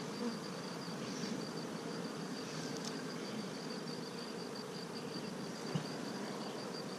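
Honey bees buzzing steadily around an open hive as a frame is worked out, a dense even hum, with a faint rapid high pulsing tone over it and one small tap about six seconds in.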